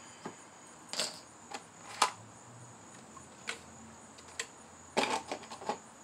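Handling sounds of an RC truck's plastic body shell being unclipped and lifted off: scattered sharp clicks and taps as the small metal body clips are pulled and dropped on the table, then a quick cluster of knocks about five seconds in as the shell is set down.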